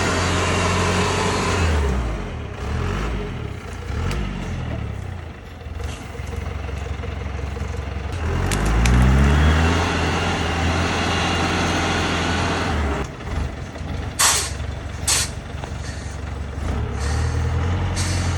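Loaded-down truck engine revving hard as the truck labours up a slippery dirt slope, its pitch rising twice, about two seconds in and again about eight seconds in. Two short hisses of air brake come about fourteen and fifteen seconds in.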